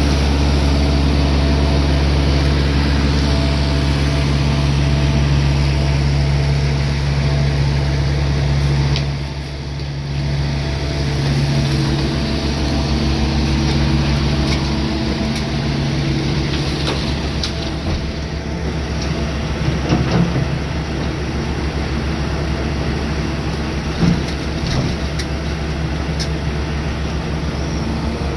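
Hitachi Zaxis 250LC-6 excavator's diesel engine running steadily, easing off briefly about a third of the way in. In the second half come several sharp knocks as the load drops into the steel end-dump trailer.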